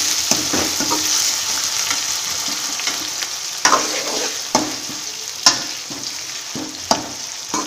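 Chopped tomatoes and browned onions sizzling in hot oil in a pan while being stirred, the spatula knocking against the pan a few times. The sizzle eases off somewhat as the tomatoes cook down.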